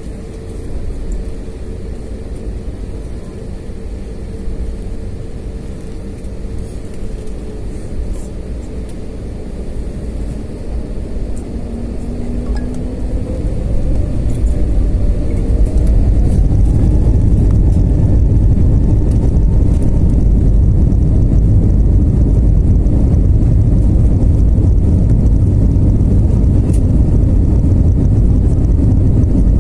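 Airliner jet engines heard from inside the cabin: a steady low rumble that grows louder about halfway through as an engine whine rises in pitch, the engines spooling up, then holds loud and steady.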